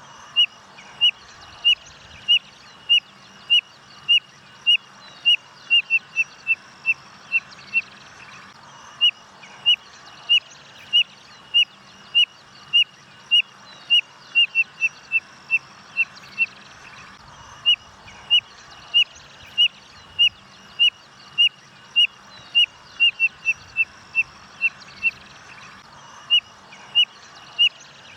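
Codorna-amarela (spotted nothura) singing: a long series of short, high whistled notes, about one and a half a second, that quickens into a faster run of shorter notes before each brief pause. The phrase repeats about three times.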